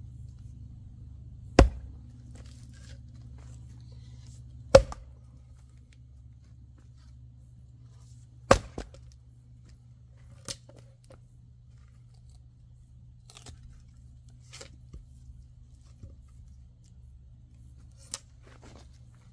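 Three sharp chopping strikes a few seconds apart, followed by a few lighter knocks and clicks, over a steady low hum.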